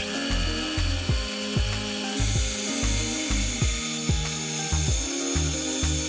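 Band saw running and cutting through a small wooden board, a steady high hiss of the blade in the wood, over background music with a steady beat.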